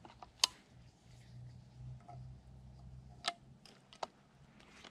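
Near-quiet woods with a few isolated sharp clicks and crackles, the two loudest about half a second in and just after three seconds in, over a faint low hum.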